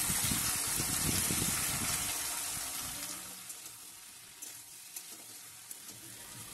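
Vegetables sizzling in a hot metal kadai as wet spice paste goes in and is stirred with a metal spatula: the masala is being fried into the vegetables. The sizzle and scraping are strongest at first and die down about three seconds in, leaving a soft hiss with a few light ticks.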